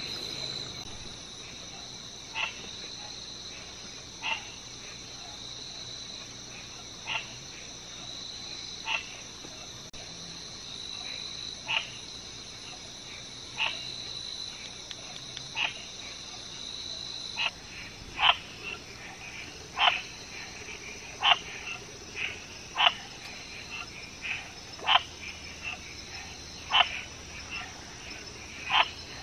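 A frog calling with short single croaks, one every second or two, growing louder in the second half, over a steady high-pitched chorus of crickets and other night insects.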